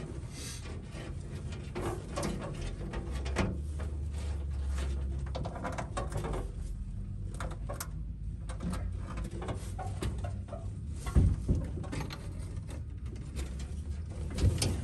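Small clicks and rustles of a car's under-dash wiring and a test light being handled, with a sharper knock about eleven seconds in.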